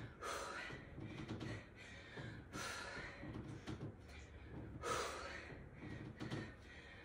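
A woman breathing hard from exertion during push-ups: deep, rhythmic breaths, the strongest about every two to two and a half seconds.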